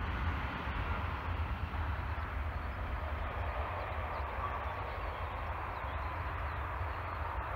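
Jet engines of a Ryanair Boeing 737 moving along the runway, a steady distant roar that eases slowly, with wind rumbling on the microphone underneath.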